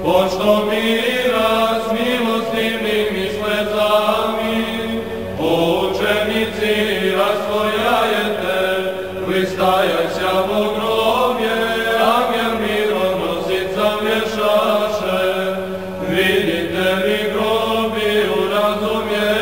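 Serbian Orthodox liturgical chant: slow, unaccompanied singing with long held and gliding notes over a steady low drone.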